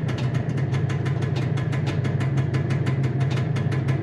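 IZh Jupiter 4 two-stroke twin-cylinder engine idling steadily, its exhaust pulsing about ten times a second. The head gasket leak is cured, but the exhaust elbow joints are leaking.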